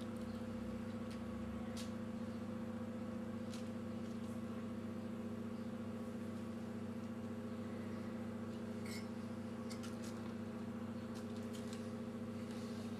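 A steady low electrical hum, with a few faint light clicks of a metal spoon against a ceramic bowl as grated Parmesan is spooned out and sprinkled.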